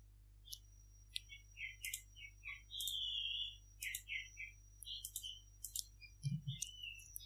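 Irregular clicks and taps from a computer mouse and keyboard, about a dozen short strikes, over a faint steady high-pitched whine.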